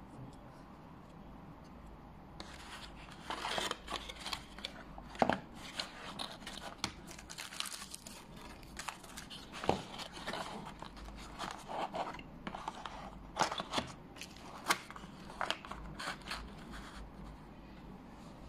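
Cardboard packaging being handled: rustling and scraping of the cardboard box and its insert, with a few sharp taps as the plastic diagnostic interface is set into its tray. The handling starts about two and a half seconds in and dies away shortly before the end.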